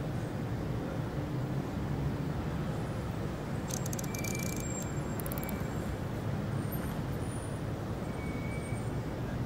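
Steady low rumble of traffic noise, with a short run of faint clicks about four seconds in and another about a second later.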